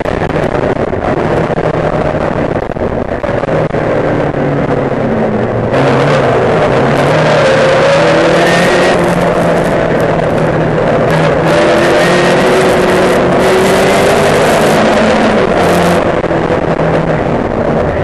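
Race car engine heard from on board under hard driving, its pitch rising and falling repeatedly as it revs through the gears. It is somewhat quieter for the first few seconds and louder from about six seconds in.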